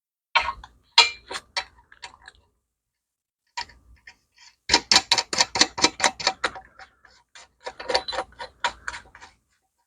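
Runs of sharp clicks or taps, about five a second, in two bursts with silences between, after a few scattered clicks at the start.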